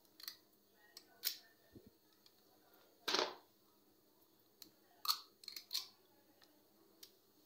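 Metal ice cream scoop clicking and scraping against a glass bowl as scoops of frozen chocolate ice cream are released into it: several short, sharp sounds, the longest and loudest about three seconds in, and a quick cluster a little after five seconds.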